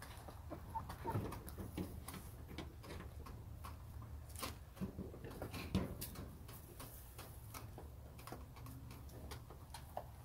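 Backyard hens pecking and scratching at wood-shaving litter: a scatter of small, sharp clicks, with an occasional soft, low murmur from the hens.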